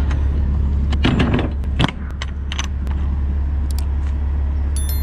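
Semi truck's diesel engine idling with a steady low rumble, with several short knocks and clicks over it.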